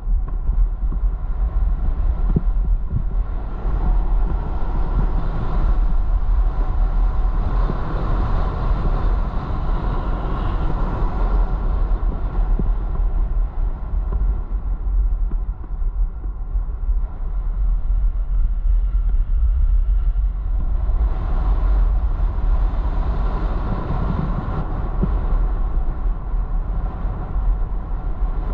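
Skiing downhill: wind rumbling on an action camera's microphone, mixed with skis scraping and hissing over packed, chopped-up snow. The scraping grows louder in two long stretches, about a third of the way in and again from about three-quarters of the way in.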